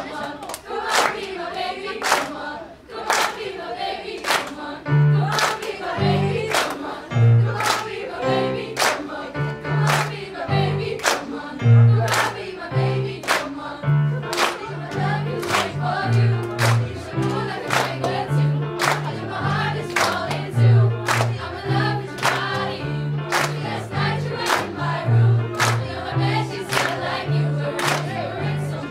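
A large girls' choir singing a pop song to keyboard accompaniment over a steady beat of sharp claps. Low keyboard notes join about five seconds in.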